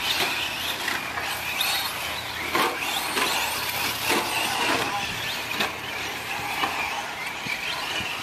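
Electric radio-controlled short-course trucks racing on a dirt track: motors whining high, rising and falling in pitch with the throttle, over a steady hiss of tyres and dirt, with a few sharp knocks scattered through.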